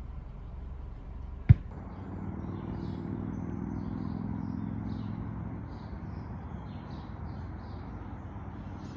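A single sharp knock about a second and a half in, then a low engine hum that swells and fades like a vehicle passing, with faint bird chirps.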